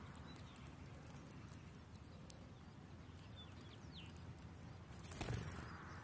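Faint, short high chirps at a common linnet nest while an adult feeds the chicks. About five seconds in comes a brief louder rustle as the adult leaves the nest.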